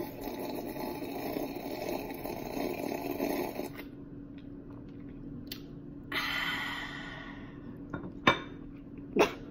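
Person gulping a drink from a glass jar for about four seconds, then a short breathy hiss and two sharp clicks near the end, over a steady low hum.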